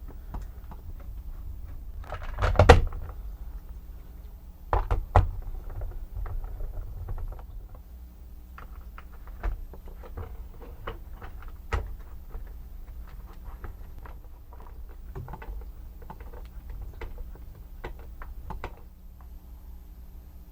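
Hard plastic robot parts being handled and taken apart on a workbench: scattered clicks and knocks, with a louder clatter about two and a half seconds in and another at about five seconds, over a steady low hum.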